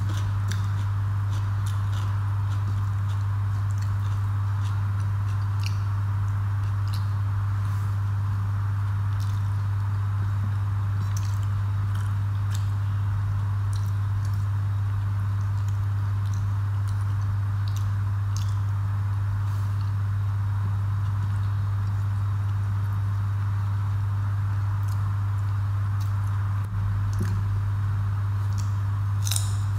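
Chewing, and the soft squish of rice and curry being mixed by hand on a plate, heard as scattered small clicks, over a steady low hum.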